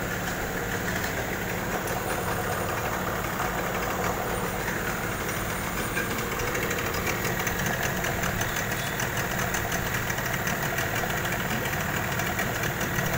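Parsun 15 hp outboard motor running steadily at idle in a water test barrel, its cowling off.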